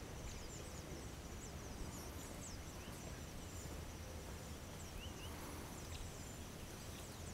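Faint mountainside ambience: a steady high insect drone with scattered short high chirps over a low rumble.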